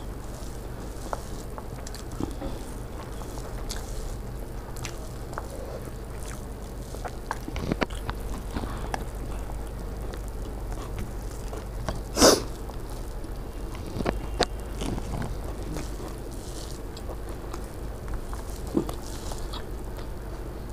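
A person eating ghugni muri, spicy yellow pea curry with puffed rice, by hand: chewing and small scattered mouth and finger clicks as the mix is worked on a steel plate. One louder sharp sound comes about twelve seconds in, over a steady low hum.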